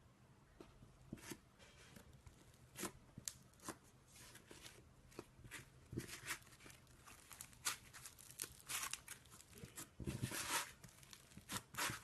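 Slime being handled by hand: irregular sticky crackles, clicks and small pops, with a longer crackling stretch about ten seconds in.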